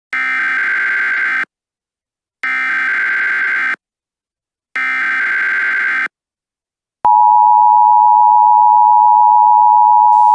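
Emergency Alert System tones: three short, buzzy data bursts of the digital alert header, then a steady, loud two-tone attention signal that begins about seven seconds in.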